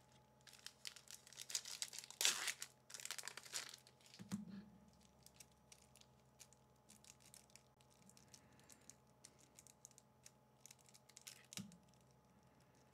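Crinkling and tearing of a foil booster pack wrapper for about three seconds near the start, then mostly quiet with scattered faint taps and a soft knock late on.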